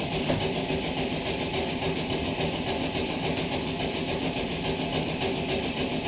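Keifuku Randen tram standing at a station platform, its onboard equipment giving a steady hum with an evenly pulsing hiss above it.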